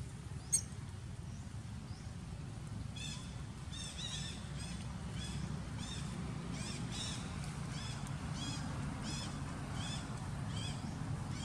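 A series of short, high-pitched squeaky calls from an animal, about two a second, starting about three seconds in and going on to near the end. There is a single sharp click about half a second in, and a steady low rumble underneath.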